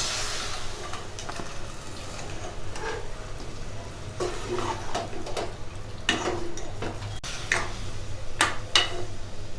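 Mutton pieces being stirred with water in a pressure cooker: a utensil scraping and knocking against the pot several times at uneven intervals, over a faint sizzle that dies away in the first second.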